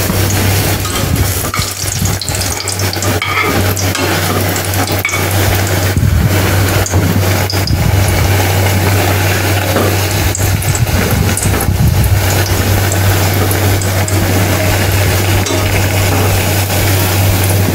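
Batter-coated bread pakora deep-frying in hot oil in a steel kadai, sizzling steadily, with scattered clicks and scrapes of a perforated steel skimmer against the pan as the pakora is turned. A steady low hum runs underneath.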